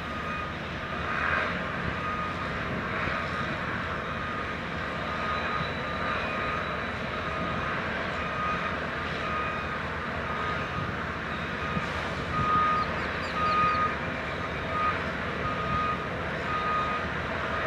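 Heavy machinery engine running steadily, with a vehicle's electronic backup alarm sounding over it in repeated high beeps that come and go.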